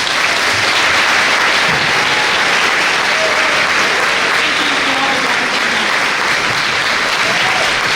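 Large crowd applauding steadily, with faint voices in the mix.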